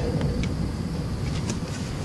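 Low, steady rumble of a thunderstorm, with a few faint ticks over it.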